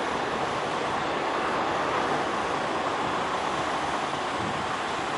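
Boeing 747-8 freighter climbing out just after takeoff, its four jet engines at takeoff power making a steady, even rush of noise.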